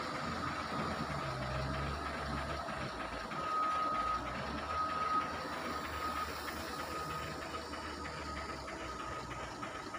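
Heavy diesel engine of a wheel loader running under a steady low rumble. From about three seconds in, a reversing alarm beeps in a regular series of short high tones, about one a second.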